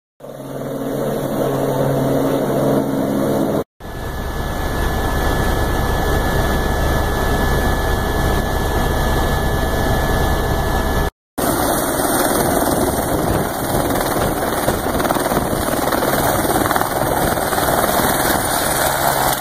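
Helicopter turbine and rotor running steadily, heard in three shots with a short drop-out between each. First comes a steady pitched hum, then a deep drone with a thin steady whine in flight inside the cabin, then loud rotor noise up close beside the helicopter.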